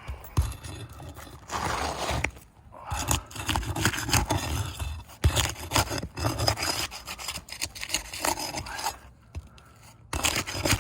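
Irregular scraping and rubbing, with scattered clicks, as roof shingles are worked loose by hand for repair, broken free at their fastenings and seal.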